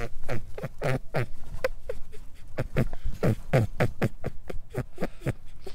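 Rabbit sound: a rapid run of short calls, each falling in pitch, about three or four a second, that sounds out of breath.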